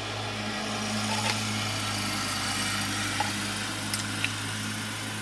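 Car engine idling, a steady low hum heard from inside the cabin, with a few light clicks from a plastic spoon and ice cream cup.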